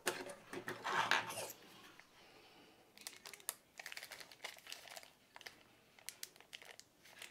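Light plastic crinkling as a small accessory packet from a model railway coach set is opened, followed by a run of light, irregular clicks of tiny plastic parts being handled on the workbench.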